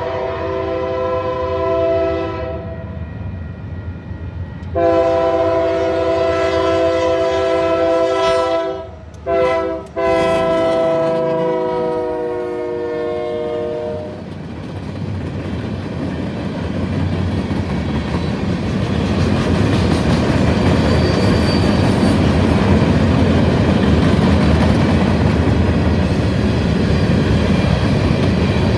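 Freight locomotive's multi-chime air horn blowing for a grade crossing: a long blast, a pause, then a second long sounding broken twice briefly, ending about halfway through. After that, the train runs past with a steady rumble and wheels clacking over the rail joints, growing louder.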